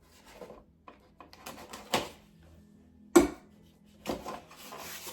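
Metal tiller tine assemblies handled in their box: a few clanks and knocks, the loudest about three seconds in, followed by handling rustle near the end.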